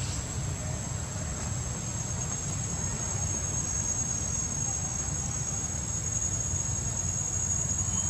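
Steady high-pitched drone of insects, with a low steady rumble underneath.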